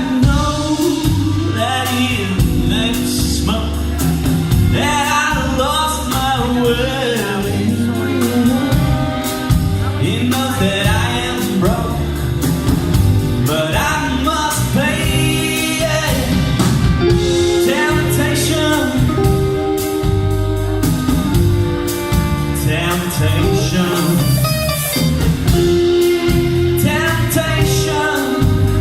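A band playing a song live, with a lead singer over a steady bass line and drums.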